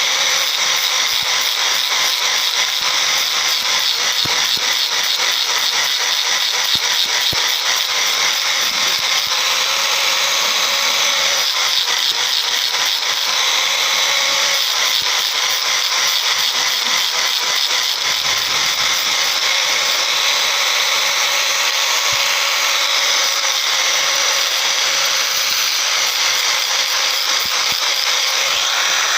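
Power tool running continuously on metal: a steady, loud, high-pitched machine noise with a fine rapid grain and almost no low end.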